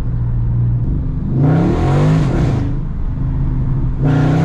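Dodge Charger Scat Pack's 392 Hemi V8 running steadily, then revving up and back down under a burst of throttle about a second and a half in, with a second, shorter burst of revs near the end.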